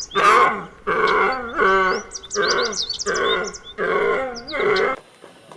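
A large animal calling loudly over and over, about seven short calls in a row, with birds chirping over it. The calling cuts off about five seconds in.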